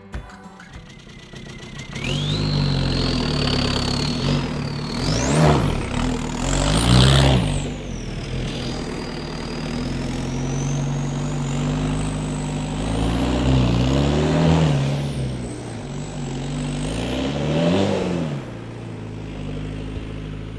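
VW Vanagon's swapped-in TDI turbodiesel engine pulling up a steep hill. The revs rise and fall several times, with a thin high whine that climbs and drops along with them.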